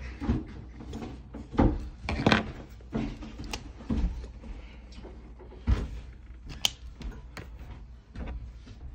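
Hands working a scratch-off lottery ticket on a clipboard while a marker draws across it: scattered knocks and short scraping strokes, with one sharp click about two-thirds of the way through.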